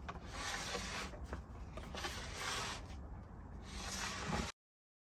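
Plastic wax scraper dragged along a snowboard base in repeated long strokes, about one a second, scraping off cooled, flaking excess wax. The scraping breaks off abruptly near the end.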